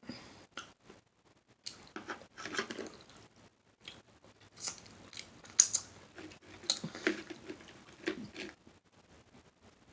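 Close-miked chewing of shrimp salad, with wet mouth smacks and clicks coming in irregular bunches. It falls quiet about a second before the end.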